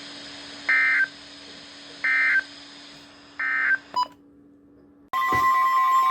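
Three short bursts of warbling digital data tones, evenly spaced about a second and a half apart: the NOAA Weather Radio SAME end-of-message code that closes an alert broadcast. About five seconds in, a steady, loud alert tone starts.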